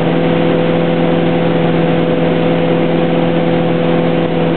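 Wakeboard tow boat's engine running at a steady pitch, over a steady rush of water noise.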